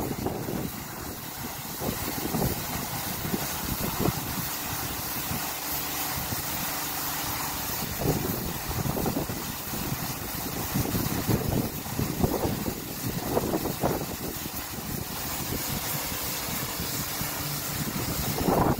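Kärcher rollover car-wash gantry running empty: rotating brushes and water spray hissing steadily over a machine hum. Wind buffets the microphone in irregular gusts.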